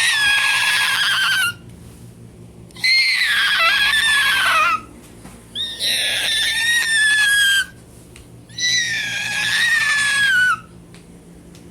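A voice screeching: four long, high-pitched, wavering screeches of about two seconds each, with short pauses between them.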